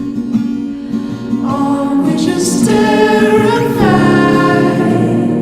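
Background music: a song with sung vocals over a soft accompaniment.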